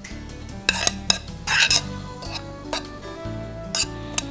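Chopped tomato and onion being pushed off a black plate into a ceramic bowl: scattered scrapes and sharp clicks of the plate against the bowl, with one longer scrape about one and a half seconds in. Soft background music underneath.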